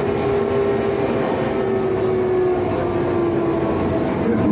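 Inside a BKM-32100D trolleybus while it drives along: the whine of its electric traction drive, holding one tone that slowly falls in pitch, over the rumble of tyres and road noise in the cabin.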